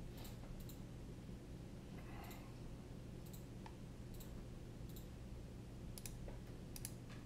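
Faint computer mouse clicks, about eight at irregular intervals, over a low steady hum.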